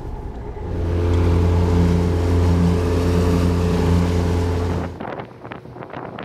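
Outboard motor running at speed: a loud steady drone over the rush of wake and wind, starting about a second in. Near the end it cuts off suddenly to quieter wind and water noise.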